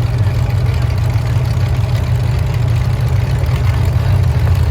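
Demolition derby car's engine idling steadily with a loud, even low rumble.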